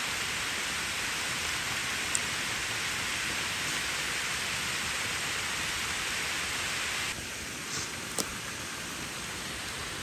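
Steady rush of water spilling down a dam's concrete spillway. It drops suddenly to a lower hiss about seven seconds in, with two short clicks, one near two seconds and one near eight.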